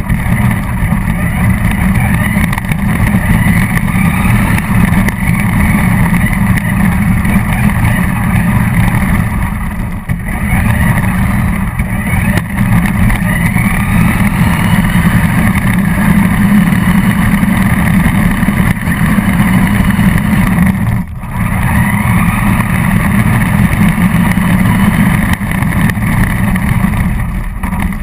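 Radio-controlled car driving hard: a loud, rough rumble of wheels and drivetrain with the motor's whine rising in pitch several times as it accelerates, and a brief drop about 21 seconds in.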